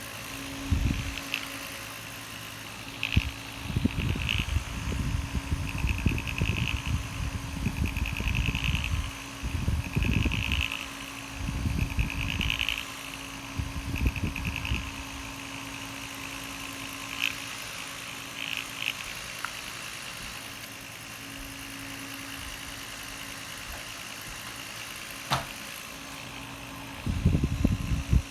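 Marpac Dohm sleep machine's fan running: a steady motor hum under an even airy hiss. Over the first half come bursts of fast ticking and low irregular thumps, with one sharp click about 25 seconds in.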